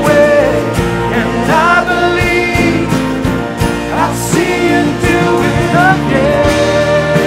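Worship song: a voice singing a gliding melody over a band of guitar and drums, holding one long note near the end.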